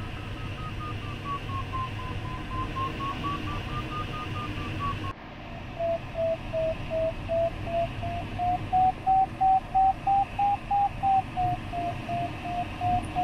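Glider variometer's audio tone over cockpit airflow hiss: first a steady tone wavering up and down in pitch, then, after a sudden cut about five seconds in, a lower tone beeping about two to three times a second and slowly rising in pitch. Beeping from a variometer signals rising air, the glider climbing in lift.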